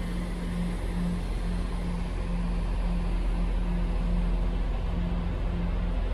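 Northern Class 170 Turbostar diesel multiple unit pulling away, its underfloor diesel engines giving a steady drone with a low hum.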